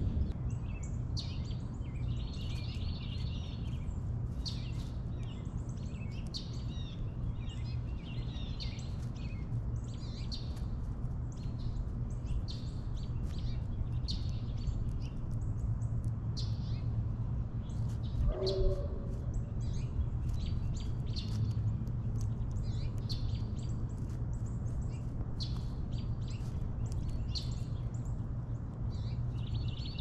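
Small backyard birds chirping and calling over and over, some calls in quick little trills, over a steady low background rumble. One short, lower-pitched call sounds a little past halfway.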